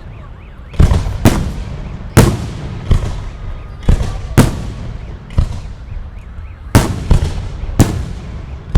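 Fireworks display: aerial shells bursting in a rapid, irregular series, about ten sharp bangs in under nine seconds, each trailing off.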